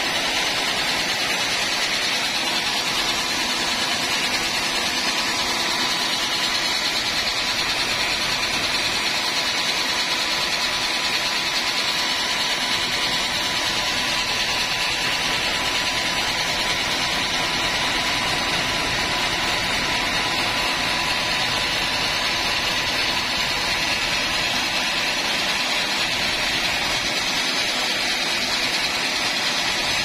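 Band sawmill's engine running steadily while the saw is not cutting, an even continuous noise with a faint steady whine.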